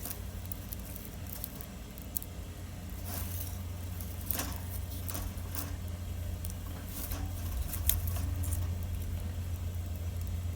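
Wood fire burning, with irregular crackles and sharp pops over a steady low rumble.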